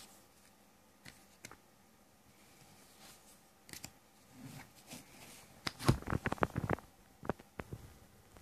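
Handling noise from playing cards and a paper booklet: a few soft clicks, then a quick run of sharp taps and rustles in the second half.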